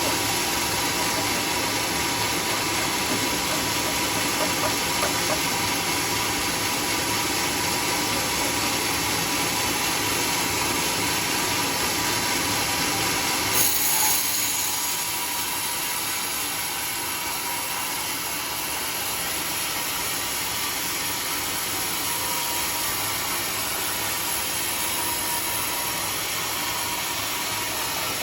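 Large sawmill machinery running steadily with a constant mechanical hiss and hum. About halfway through there is a brief hissing burst, after which the noise settles a little quieter.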